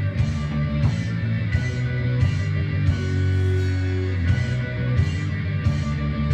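Rock music with electric guitar playing.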